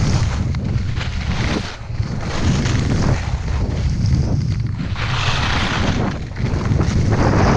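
Heavy wind buffeting on a GoPro's microphone during a fast ski descent, with the hiss of skis scraping and carving across groomed snow swelling with the turns, most strongly about five seconds in and near the end.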